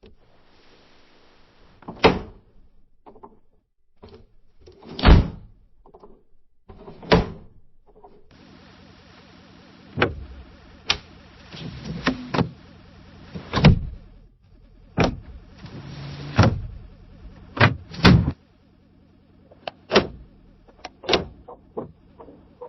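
A window being opened and shut over and over: the frame scrapes as it slides, and it knocks sharply against its stops, about a dozen knocks in all.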